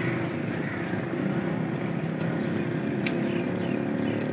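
Steady low rumble of motor traffic, with a few faint sharp knife taps on a wooden chopping block about three seconds in.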